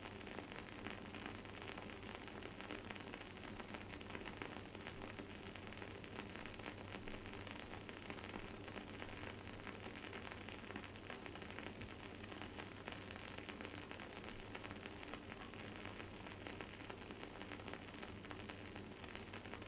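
Wooden candle wick crackling and sizzling as it burns: a steady, dense run of tiny pops.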